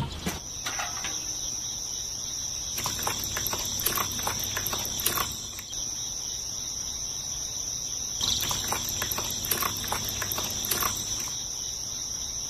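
Insects trilling steadily in one continuous high-pitched tone, with scattered light clicks and taps underneath.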